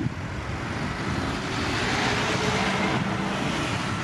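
Boeing 737's jet engines running at high power as the airliner rolls down the runway, a broad rushing noise that swells to its loudest about two seconds in.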